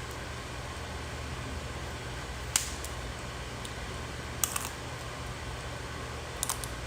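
Snow crab leg shells snapping and clicking as they are cracked and handled: a few short, sharp cracks, one near the middle and a small cluster later, over a steady low hum.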